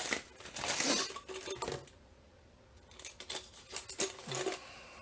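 Small metal tool clicking and scraping against a 9-pin cam lock while prying at the crimp that holds it together, in two short bouts with a pause between them.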